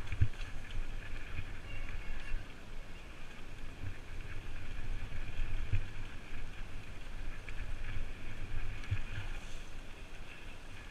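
Mountain bike riding fast down a dirt and gravel trail, recorded from the rider's helmet: a steady rush of wind and tyre noise over a low rumble, with irregular knocks and rattles as the bike hits bumps.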